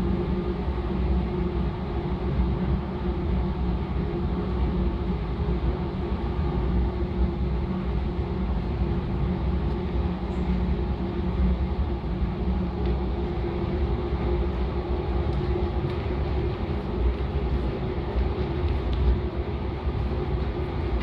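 Steady roar of a glass furnace's gas burner and blower, with a low hum at a few fixed pitches. A few faint clicks come near the end.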